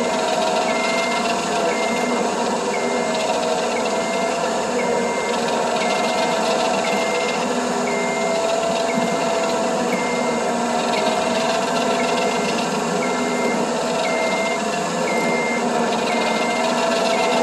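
Cable winch running steadily, a whining hum, as it pulls a load up onto a trailer, with a short high beep repeating about once a second.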